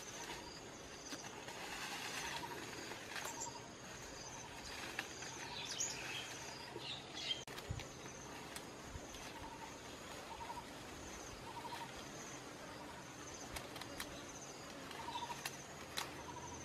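Wild outdoor ambience: short trilled chirps recurring again and again at two pitches, one high and one lower, over a steady background hiss, with a few sharp snaps and rustles of vegetation being handled.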